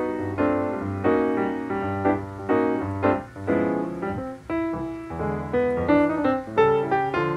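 Background music: keyboard chords struck one after another in a steady rhythm.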